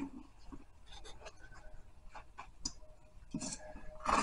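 Large upholstery shears cutting along a pattern sheet: faint, irregular snips with the rustle and scrape of the sheet on the table, a little louder near the end.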